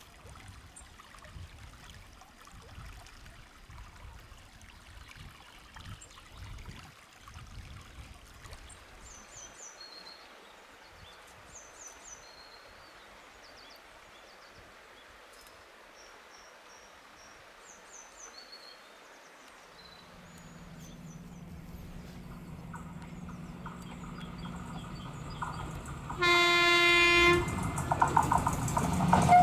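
An approaching passenger train: its low rumble builds over the last several seconds, and its horn sounds one blast of a little over a second near the end. Before that, faint stream noise with birds chirping.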